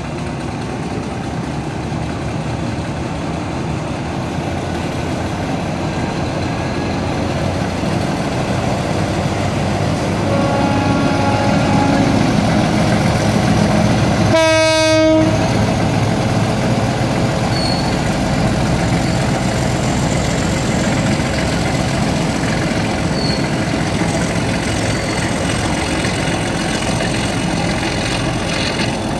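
Freight train of covered goods wagons rolling along the track, a steady rumble of wheels that swells and then eases. About halfway through, the diesel locomotive's horn sounds once in a short blast.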